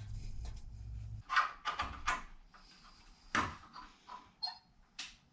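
Irregular knocks and clatter of the garage door opener's metal rail and fittings being handled and taken down, with the loudest knock about three and a half seconds in. A low hum runs under the first second or so.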